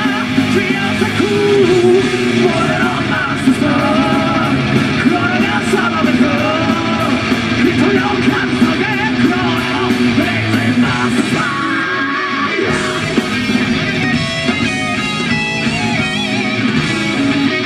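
Live Japanese heavy metal band playing: a male singer over distorted electric guitars, bass and drums with crashing cymbals. After about twelve seconds the voice drops out and the guitars carry the melody.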